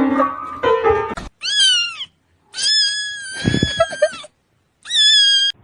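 Music that ends just over a second in, followed by a cat meowing three times, high-pitched. First a short meow, then a long drawn-out one, then a short one near the end.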